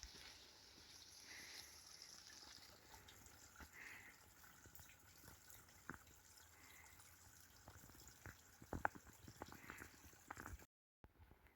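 Near silence: faint outdoor ambience with scattered soft ticks and taps, a few louder ones past the middle, and the sound cutting out completely for a moment near the end.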